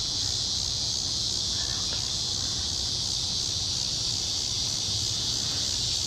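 A steady chorus of late-summer insects, a continuous high-pitched shrill that holds even throughout.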